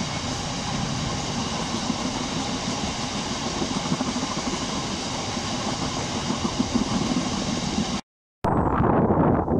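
A freight train of empty open box wagons rolling past, a steady rumble of wheels on the rails. It cuts off about eight seconds in, and after a short gap a different, uneven loud noise starts.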